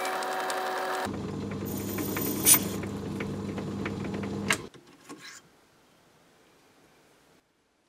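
Myford ML7 hobby lathe running as it skims the outer diameter of a brass disc: a steady motor hum, with a sharp click at about two and a half seconds. It stops about four and a half seconds in with another click, leaving only faint handling sounds.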